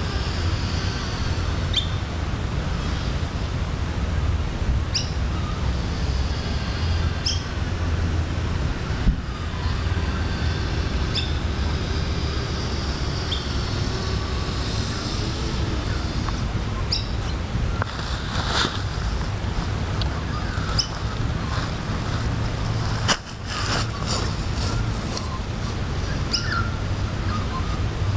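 Wind rumbling on the microphone, with birds chirping briefly every few seconds and a short crackle about two-thirds of the way in.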